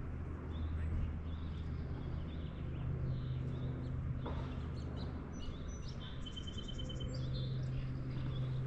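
Small birds chirping, with one quick trill of rapidly repeated notes about two-thirds of the way through, over a steady low hum.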